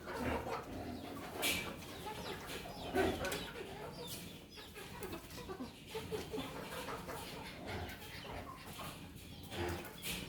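Chickens clucking, with a few brief sharp sounds, about a second and a half in, around three seconds in, and near the end.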